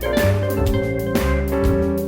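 Background music: an upbeat instrumental track with a steady drum beat and bass.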